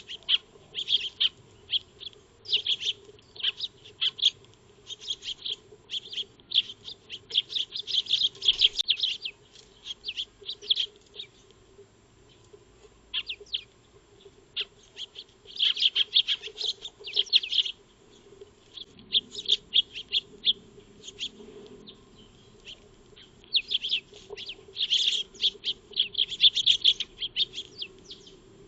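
Eurasian tree sparrows chirping: many short, high chirps in irregular bursts with a few brief lulls, over a faint steady hum.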